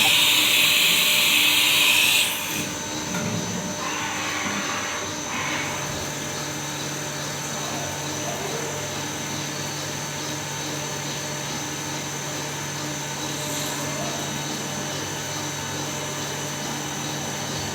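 Compressed air hissing loudly for about two seconds, then two shorter hisses a few seconds later, over a VMC machine's steady hum.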